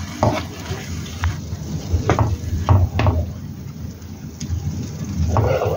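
A spatula scraping and knocking against a pan as it stirs minced pork simmering in its own released water: a handful of irregular sharp strokes and a longer scrape near the end, over a low rumble.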